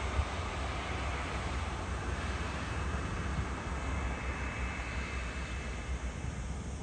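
Small twin rear-engined business jet taxiing, its turbofans at low power giving a steady rushing noise with a faint high whine in the middle.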